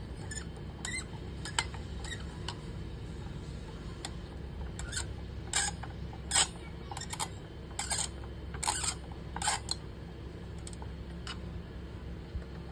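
Irregular small metallic clicks and taps of a screwdriver working the mounting screws of a stock AMD CPU cooler, coming thickest in the middle of the stretch, over a steady low hum.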